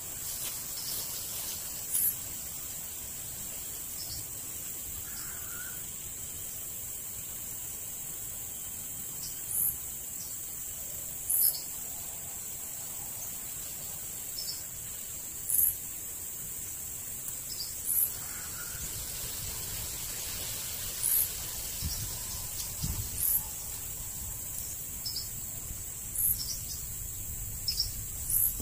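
Insects outdoors: a steady, high-pitched drone, with short, very high chirps every two to four seconds.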